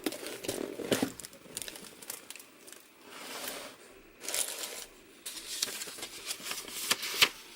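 Packaging being unwrapped by hand: wrapping crinkling and rustling in several bursts, with small sharp handling clicks in between.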